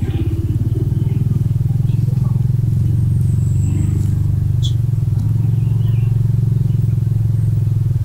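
Motor scooter engine running steadily close by, an even low putter of firing pulses, as the scooter rides up carrying two people.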